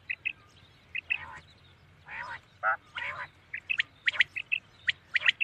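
Common quail calling: an irregular string of short, sharp high notes, some in quick pairs or threes, with a few longer, lower calls in between.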